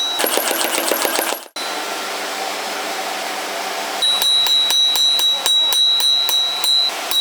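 Rapid metallic tapping that cuts off about a second and a half in. Then comes a steady rushing noise, like a forge blower or grinder. From about four seconds in, a hammer strikes steel on an anvil about four times a second, each blow ringing clearly.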